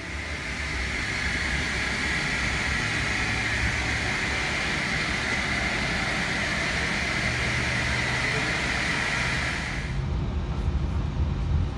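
Steady rushing noise of an Airbus A320 airliner, a strong high hiss over a low rumble. About ten seconds in the hiss falls away, leaving an uneven low rumble.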